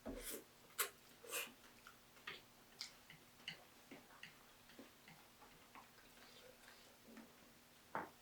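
Close-miked eating sounds of chewing spicy ramen noodles: irregular soft clicks and smacks of the mouth, several in the first second and a louder one near the end.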